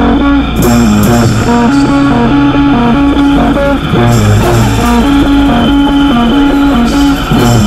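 Background rock music with electric guitar and bass.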